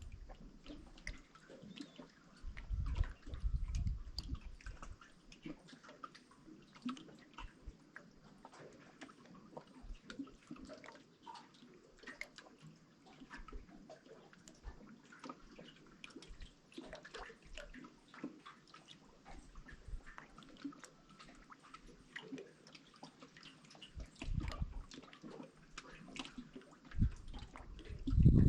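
Water trickling and dripping, with many small scattered splashes and clicks. A few low rumbling surges come about three seconds in and again near the end.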